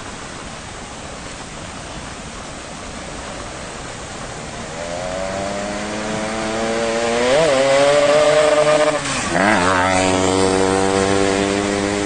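Steady rushing noise, with a small motorcycle engine coming in about halfway through. The engine grows louder and climbs in pitch, and its pitch drops briefly twice, like gear changes.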